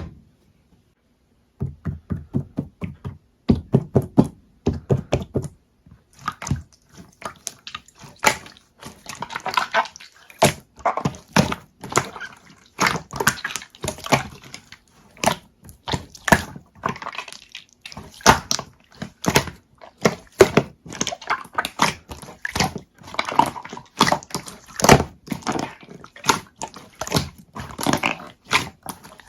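Clear slime being squished and pressed by hand, making a quick, irregular run of wet clicks and pops. It starts after about a second and a half of silence.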